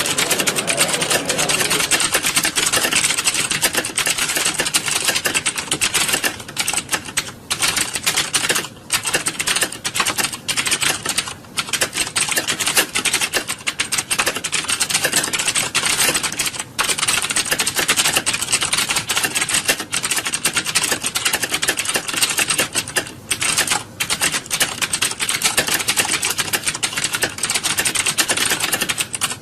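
Many computer keyboards being typed on at once, a dense, fast, overlapping clatter of keystrokes with no pauses, as in a room full of candidates sitting a typing test.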